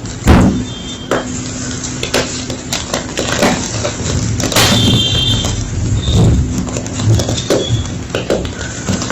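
Homemade gym chalk being crushed, a continuous run of crunching and crackling with many small sharp snaps.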